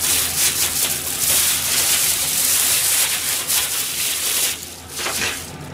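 Thin plastic bag being crumpled and rustled in the hands: a dense crinkling for about four and a half seconds, then a short rustle near the end.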